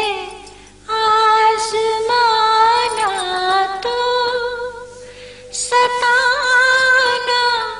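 A woman singing a ghazal solo in long, drawn-out notes with a wavering ornamented pitch, breaking off briefly about half a second in and singing more softly for a moment midway.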